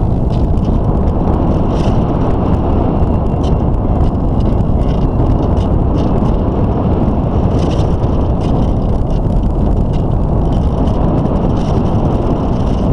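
Steady rush of wind over a model aeroplane in flight, picked up by a camera mounted on the plane, with faint scattered ticks and rattles.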